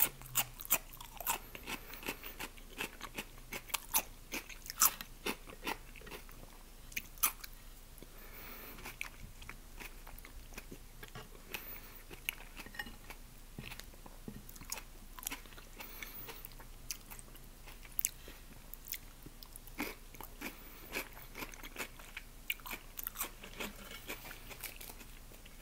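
Close-miked chewing and biting of an omelette with tomatoes wrapped in lavash flatbread and eaten by hand, with many sharp mouth clicks.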